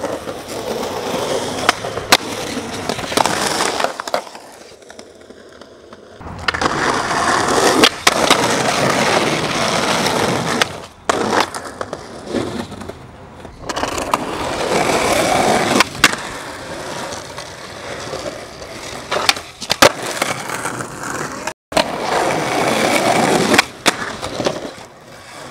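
Skateboard wheels rolling over concrete, broken by sharp wooden clacks of the board popping and landing several times. The sound stops and restarts abruptly a few times.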